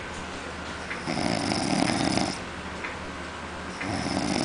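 Snoring in slow, even breaths. One loud snore comes about a second in and lasts about a second, and the next begins near the end, with quieter breathing between.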